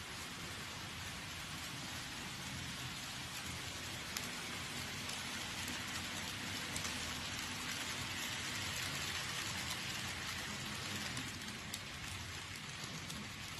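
Model trains running on a layout: a steady hiss of small wheels rolling on the rails over a faint low hum from the locomotives' motors, growing a little louder partway through and easing off near the end.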